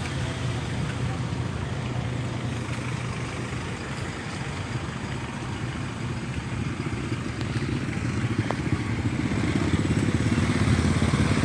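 A vehicle engine running steadily, growing louder over the last few seconds.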